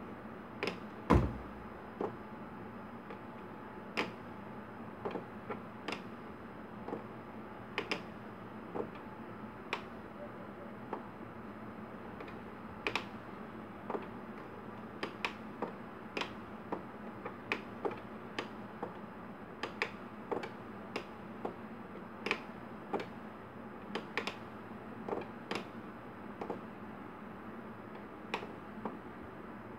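Small plastic push-button switches on an electronics trainer board clicking as they are pressed one after another at an irregular pace, sometimes two in quick succession, over a faint steady hum. A louder thump about a second in.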